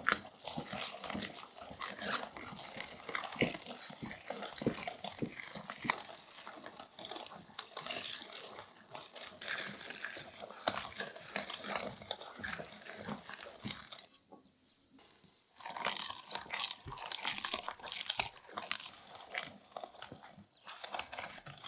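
Meat grinder mincing tomatoes and peppers: wet squelching and crunching as the pulp is forced through the plate, with a short pause about two-thirds of the way through.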